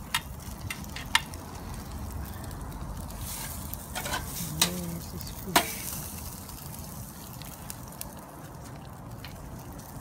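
Fish sizzling on a charcoal grill, with a few sharp pops and crackles from the fire, the loudest about four and a half and five and a half seconds in.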